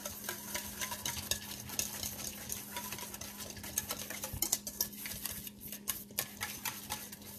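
Wire whisk beating a runny mayonnaise dressing in a stainless steel mixing bowl: quick, continuous clicking and scraping of the wires against the metal, with two brief pauses about three-quarters of the way through.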